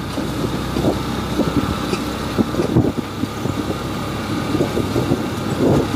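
Motorcycle engine running as it rides along a wet road, with tyre noise from the wet pavement under a steady uneven rumble.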